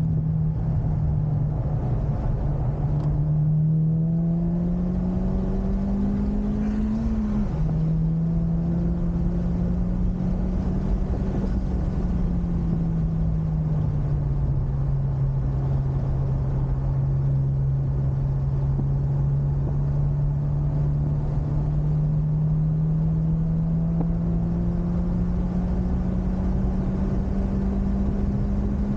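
Honda Civic Type R FK8's 2.0-litre turbocharged four-cylinder engine, heard from the car at speed on a circuit. The revs climb, drop suddenly on a gear change about seven seconds in, fall away around the middle, then build slowly again, over steady wind and road noise.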